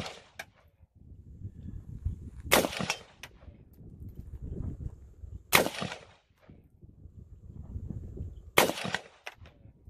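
Scoped AR-style rifle fired three times, single shots about three seconds apart, each a sharp crack with a short echo.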